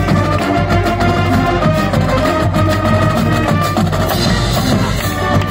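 Marching band playing: a drumline of snare drums, bass drums and crash cymbals keeps a steady beat under held notes from sousaphones and other brass and saxophones.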